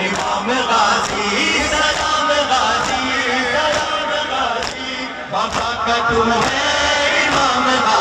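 A crowd of men chanting a noha in unison, with rhythmic slaps of hands striking chests (matam) about twice a second.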